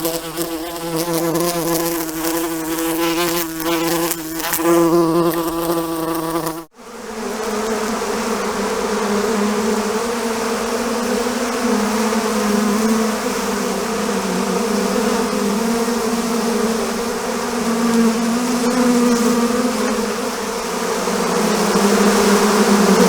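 Flying insects buzzing: a steady wingbeat drone. About seven seconds in it cuts abruptly to a second, slightly higher and noisier buzz that runs on steadily.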